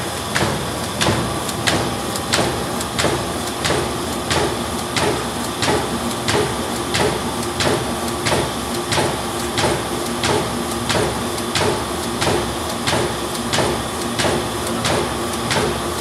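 Triplex-row paper cup die cutting machine running, its die press punching paper cup fan blanks in a steady, even rhythm of about three sharp strokes every two seconds, over a constant machine hum.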